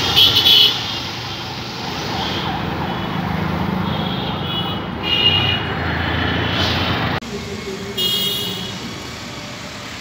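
Busy road traffic running by, with short high horn honks three times: at the start, about five seconds in and about eight seconds in. The traffic noise drops abruptly about seven seconds in to a quieter street.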